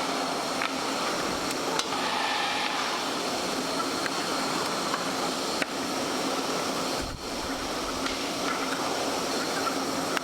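Large meat-processing machine running steadily, a constant mechanical hum and rush with a few short clicks.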